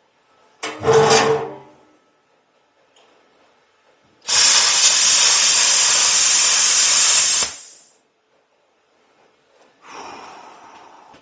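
Riverweld AG-60 plasma torch on an Everlast SuperUltra 206si cutting thin, dirty sheet steel at 35 amps: a loud, steady hiss of the arc and air for about three seconds, starting about four seconds in and cutting off. A short buzz comes about a second in, and a fainter hiss near the end.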